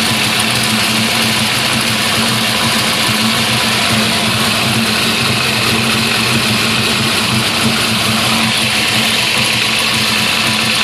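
Aftermarket fuel-injected car engine idling steadily. Its crank-trigger number-1 tooth angle is set to 60 degrees, the setting that put the timing light right on the mark.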